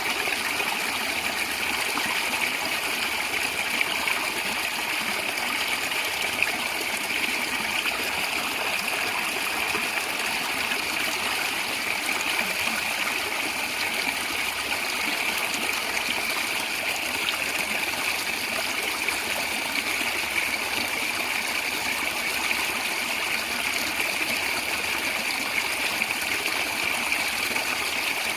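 Stream water gurgling and trickling with a steady rush.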